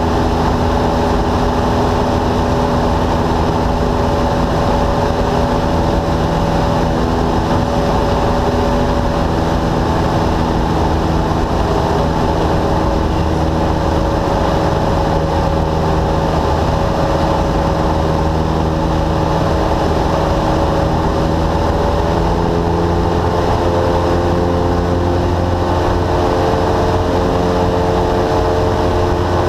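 Cessna light aircraft's piston engine and propeller running steadily in cruise, heard from inside the cabin as a loud, even drone. Its pitch shifts a little about two-thirds of the way through.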